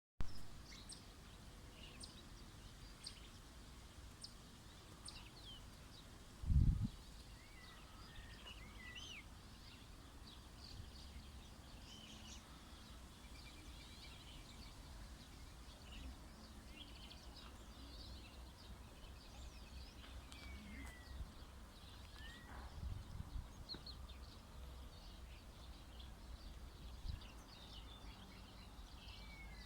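Small birds chirping and singing, many short high calls and whistles scattered throughout, over a steady low rumble. A brief low thump about six and a half seconds in, and a few smaller ones later.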